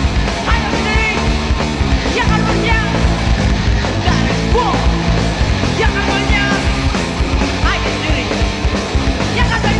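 Punk rock band playing live at full volume, a dense wall of band sound with shouted vocals.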